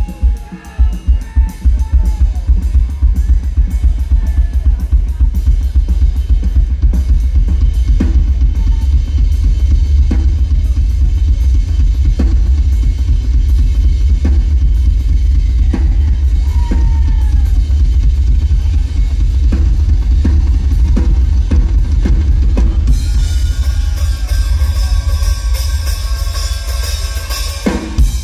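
Live rock drum solo on a full kit: fast, dense bass drum and tom work with snare and cymbal hits. It builds into a cymbal wash for the last few seconds and stops abruptly on a final hit.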